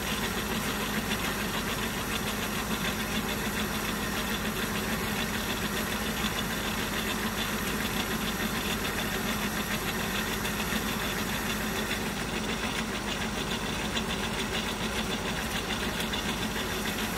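Centre lathe running steadily with an even mechanical hum while a taper is turned by hand-feeding the tool on the compound rest.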